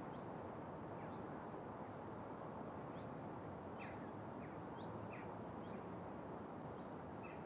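Outdoor ambience: a steady background hiss with scattered short bird chirps that fall in pitch.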